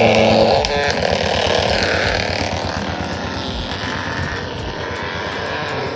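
Traditional animal-driven wooden mustard oil mill (ghani) at work: the wooden pestle grinding mustard seed in the wooden mortar with a steady grinding noise that swells and fades.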